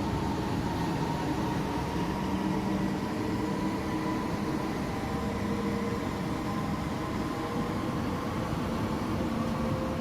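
NS-16 metro train running steadily, a constant rumbling noise with several faint steady whining tones over it.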